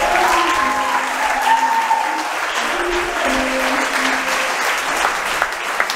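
Audience applauding steadily while the last held notes of the dance music fade out about four and a half seconds in, leaving only clapping.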